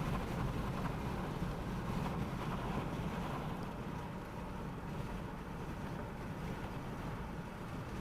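Steady low rumble of strong gusting wind buffeting the microphone, from a strong rear-flank downdraft behind a tornado.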